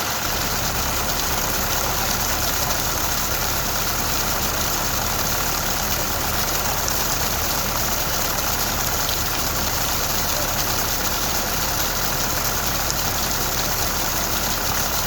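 Steady rain falling, an even hiss that neither swells nor breaks.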